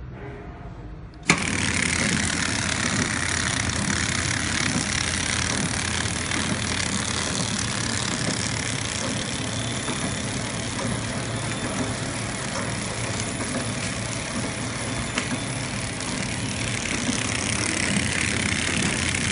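KT-250B horizontal flow-wrapping machine for snacks, dates and candy switching on about a second in with a sudden jump in level, then running with a loud, steady mechanical noise.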